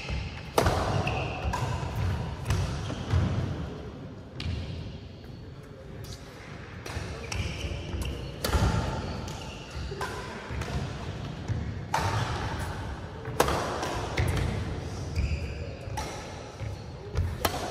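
Badminton rackets striking a shuttlecock with sharp cracks every second or two, over thudding footsteps on the court, with a quieter lull partway through.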